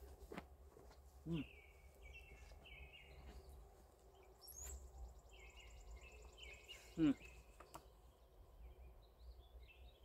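Songbirds singing in the woods, repeating short chirping phrases, with a high trill near the middle. Twice, about a second in and about seven seconds in, a man gives a short low "mmm" of enjoyment that falls in pitch while chewing a taco; a low wind rumble sits on the microphone.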